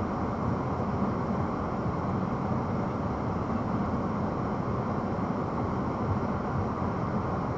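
Steady low rumble of idling vehicle engines, heard from inside a stopped car's cabin.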